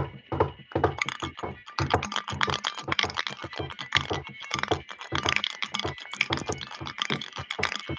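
Home-made Foley effects for a horse pulling a buggy: rapid, dense, uneven clattering taps and knocks, many with a low thud under them.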